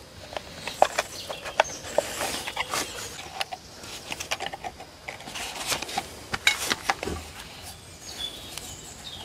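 Light clicks and rustles of a black plastic nursery pot being handled around a maple trunk while wire is tightened with pliers to hold it for an air layer.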